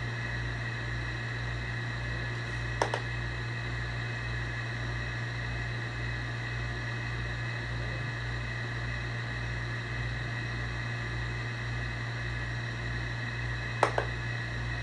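Steady machine hum with a low throb about twice a second, with two short clicks, about three seconds in and near the end.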